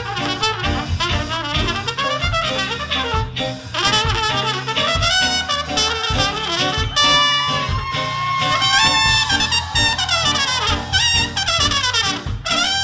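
Live ska band playing, with trumpet, saxophone and trombone over bass and drums, recorded from the crowd.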